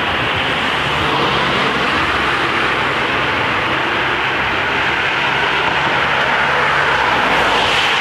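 Road traffic noise with a steady low engine hum that stops about seven seconds in.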